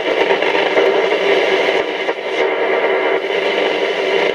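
Roberts R727 transistor radio on shortwave giving out a steady rush of static, with a few faint steady whistles in it, as it is tuned between stations: general band noise, no station coming in.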